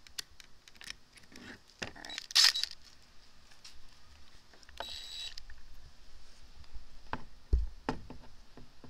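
Clicks and rattles of drill bits and a cordless drill being handled. About halfway through comes a short whir of the drill boring a small pilot hole through a paper template into a plastic side panel.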